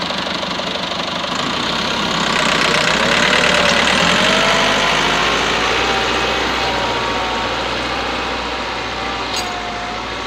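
Massey Ferguson 385 tractor's four-cylinder diesel engine running under load in first gear, pulling a 13-tine cultivator through the soil. It swells a few seconds in, then slowly fades as the tractor moves away.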